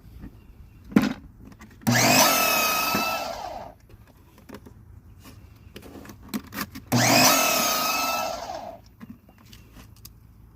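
Greenworks 2000 psi electric pressure washer's motor and pump starting up with a steady whine and running for about two seconds, then cutting off, twice. The washer keeps cycling on and off, which the owner puts down to ice inside it. Light clicks come between the runs.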